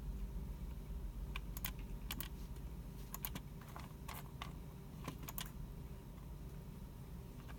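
Scattered, irregular clicks of computer keyboards and mice, some in quick pairs, over a steady low hum of the room; the clicking stops a little over two-thirds of the way through.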